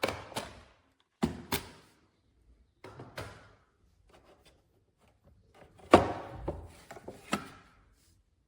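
Several short knocks and clunks with quiet between them, the loudest about six seconds in.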